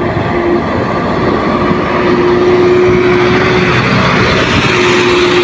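A small dump truck's diesel engine running under load as the truck climbs slowly up a sandy dirt track, with a steady whine over the engine noise. It grows slightly louder over the first couple of seconds as the truck comes closer.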